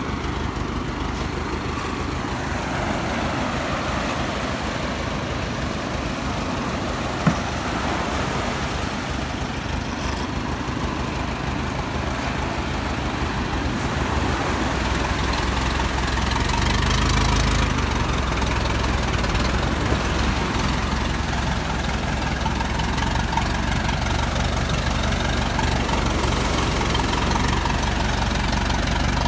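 Farm tractor engine running steadily as it tows a round basket boat up the beach, with surf washing behind. The engine grows louder about halfway through as the tractor comes closer.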